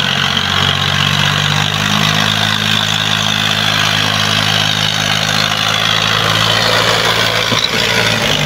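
Heavy diesel engine of a tractor or excavator running steadily under load, with a low even drone; its pitch rises slightly about two seconds in.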